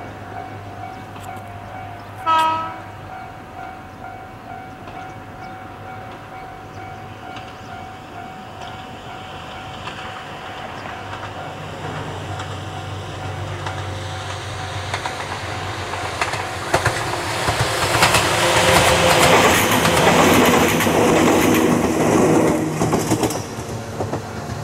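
Ohmi Railway 100-series two-car electric train (set 103F) approaching and passing. Its horn gives one short blast about two seconds in. Then the running sound builds slowly and peaks in a clickety-clack of wheels over rail joints before falling away near the end.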